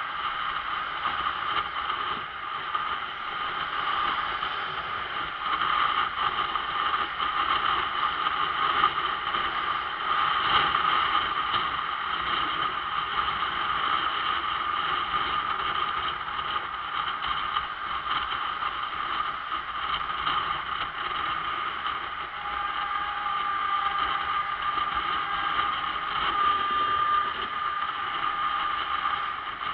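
Riding sound of a motorcycle on the move: the engine running steadily under wind rush on the microphone, with no sudden events.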